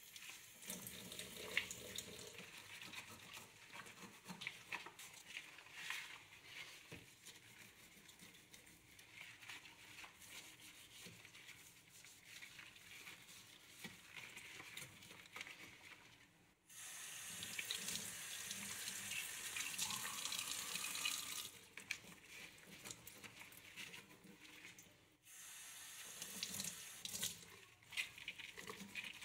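Water from a kitchen tap running into a stainless steel sink, mixed with rubbing and small knocks from rubber-gloved hands wiping the chrome faucet. About halfway through, the water runs fuller and louder for about five seconds.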